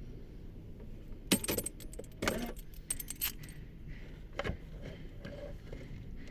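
Short metallic clicks and rattles of hard objects being handled, in clusters about a second apart, over a faint steady hum.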